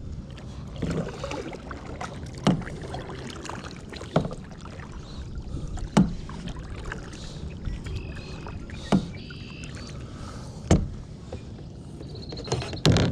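Sharp hollow knocks on a plastic kayak's hull and deck, six of them at irregular gaps of about two seconds, as a freshly landed bass and the rod are handled aboard.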